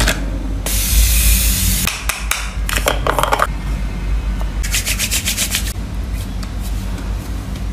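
Skincare handling sounds: a short hiss about a second in, then the lid of a plastic cream jar twisted open and cream rubbed between the hands in quick repeated strokes, near the middle.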